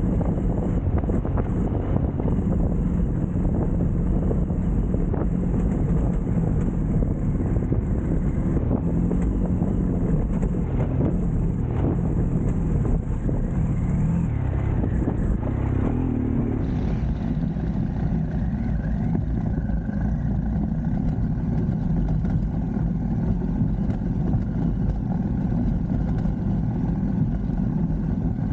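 Vehicle engine running steadily while driving, mixed with wind and road rumble on the microphone. The sound's character shifts about halfway through.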